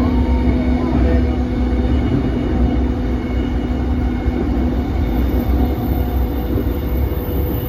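Running sound inside a JR East E233 series 5000-subseries electric train car travelling at speed: a steady rumble of wheels on rail with a constant low hum.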